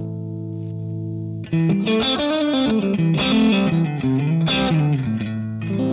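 Electric guitar played through a Line 6 Helix modeller's EF86-style amp preset, the boosted, driven rock sound. A held chord fades out, then about a second and a half in comes a run of single notes, ending on a new ringing chord.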